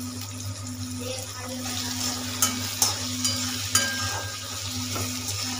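Chopped tomatoes sizzling in hot oil in a metal kadhai, stirred with a metal slotted spatula that clinks and scrapes against the pan a few times between about two and four seconds in. The tomatoes are not yet cooked through.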